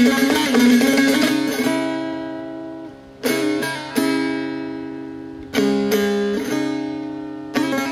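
Persian dutar played solo: a fast strummed passage for the first second and a half or so, then a few chords struck singly and left to ring out and fade between strikes.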